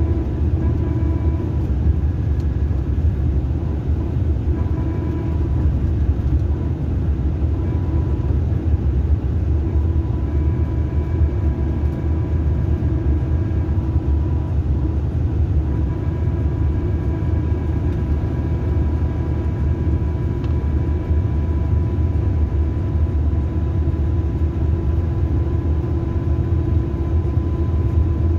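Mercedes-Benz coach heard from inside the passenger cabin: a steady low engine rumble, with faint thin whining tones that fade in and out.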